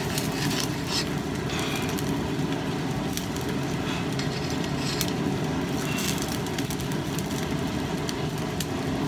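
Scratchy, crackling strokes as scale is scrubbed by hand off the hot, freshly oil-quenched steel edge of an axe head with a piece of grinding disc, so the temper colours can be watched. Under them runs a steady low rushing noise.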